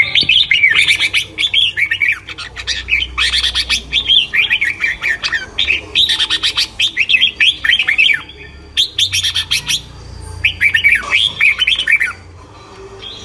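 Small songbirds singing and chirping close by in fast runs of high, quick notes. The song comes in several bouts of a few seconds each, with brief pauses between them.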